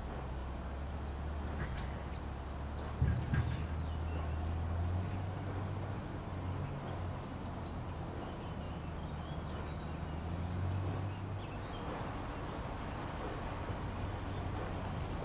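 Low, steady drone of a distant engine, with faint bird chirps and a single short knock about three seconds in.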